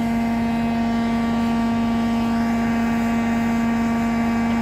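Steady mechanical drone: one strong low hum with a stack of fainter steady tones above it, holding at an even level throughout.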